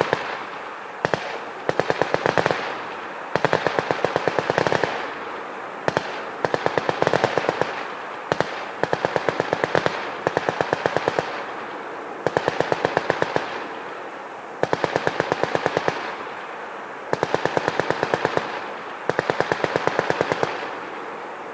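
General-purpose machine guns firing short bursts of automatic fire on a range, one burst after another, each about a second of rapid shots at roughly ten a second, with brief pauses between bursts.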